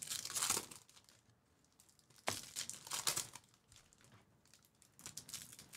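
Foil trading-card pack wrappers crinkling and being torn open by hand, in three short bursts of rustling a couple of seconds apart.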